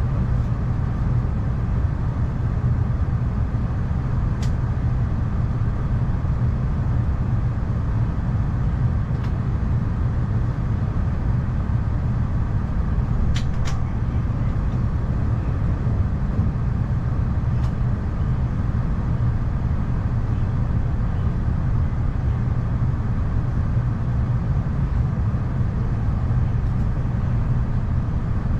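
Steady low rumble of a Narita Express train heard from inside the carriage while it runs, with a few brief clicks, the sharpest a pair about thirteen seconds in.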